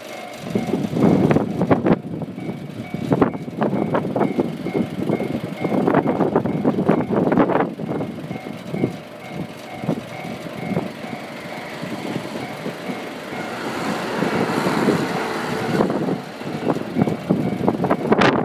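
Japanese railway level crossing alarm ringing its repeating two-tone electronic 'kan-kan' warning, over loud, irregular clattering knocks. The warning tone drops out for a few seconds near the end, while a broad hiss rises, and then comes back.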